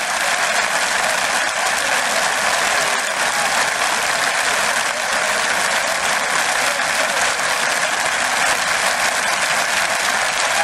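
Large stadium crowd applauding steadily, a dense even wash of clapping from a packed stand.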